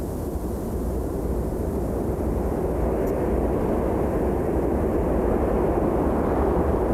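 Desert wind blowing, a steady low rushing that slowly grows louder.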